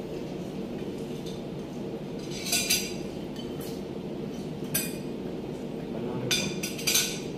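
Forks and spoons clinking against plates and dishes while eating: a few sharp clinks about two and a half seconds in, one near five seconds and a cluster near the end, over a steady low hum.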